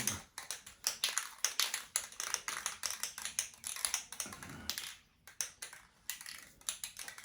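Paintbrush stroking and dabbing paint onto a transmission casing: a quick run of short, scratchy strokes, about three or four a second, easing off around five seconds in.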